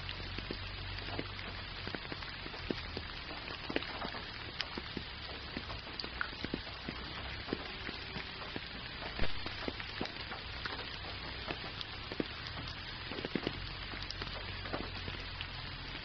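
Gentle rain falling steadily: an even hiss full of many separate drop ticks, over a low steady rumble.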